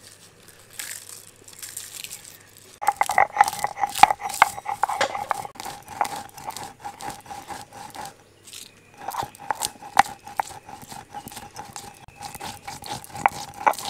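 Dry-roasted whole spices (dried red chillies, star anise, cardamom, fennel, peppercorns) being crushed with a stone roller on a grooved stone grinding slab (shil-nora): dense, rapid crunching and grinding scrapes. The grinding starts about three seconds in, pauses briefly about eight seconds in, then carries on.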